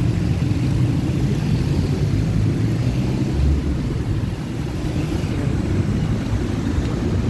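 Steady low rumble of motor-vehicle engines and road traffic, motorbikes and cars, with no single event standing out.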